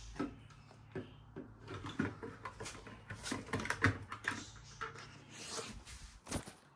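Irregular plastic clicks, taps and knocks of a smoke alarm being handled and fitted onto its mounting base plate.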